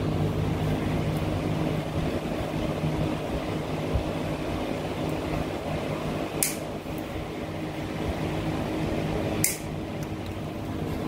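Steady machine hum, like a shop fan running, with two sharp clicks of hand tools on the fittings, about six and a half and nine and a half seconds in.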